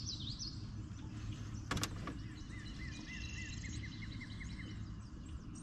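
Outdoor lakeside ambience with songbirds singing, one of them giving a quick run of repeated notes for about two seconds, over a steady low rumble. A single sharp click comes just before two seconds in.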